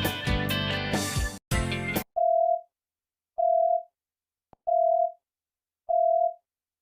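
Android 5.1 ringtones: a strummed guitar ringtone ends about two seconds in, then an electronic beep ringtone starts: four identical single-pitch beeps, each about half a second long, spaced just over a second apart with silence between.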